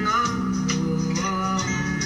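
Background music: a Spanish-language song with a male voice singing over held instrument notes.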